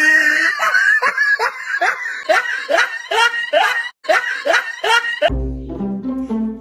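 A person laughing in a quick series of bursts, about two or three a second, over music. The laughter cuts off suddenly about five seconds in, leaving music with a steady low bass.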